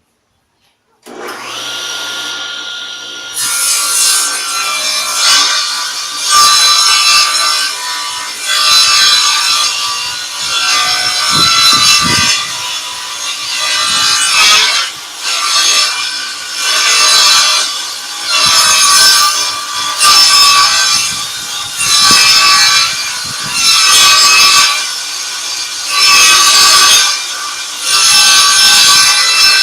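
Table saw switched on about a second in, then ripping a long board into strips, the cutting noise swelling and easing about every two seconds.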